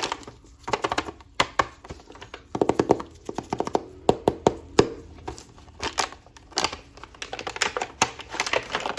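Plastic toy packaging being handled and opened: irregular runs of crackles and sharp clicks, some in quick clusters, with short pauses between them.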